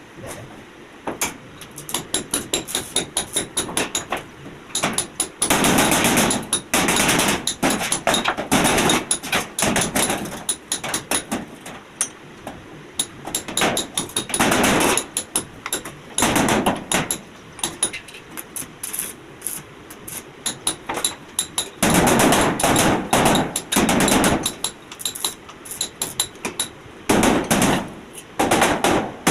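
A hammer striking metal in repeated runs of rapid blows, with short pauses between the runs.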